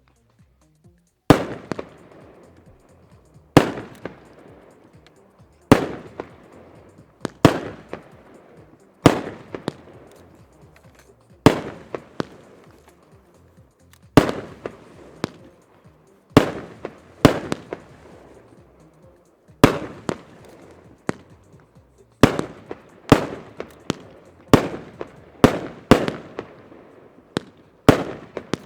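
A 25-shot, 30 mm calibre consumer firework cake firing shell after shell. Each shot is a sharp bang followed by a fading tail of sound. The shots come about every one to two seconds, and come faster in the second half.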